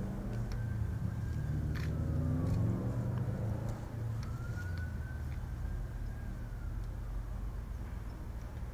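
Aircraft engines droning overhead in a flyover, their pitch falling as they pass about two to three seconds in, with a steady low rumble throughout.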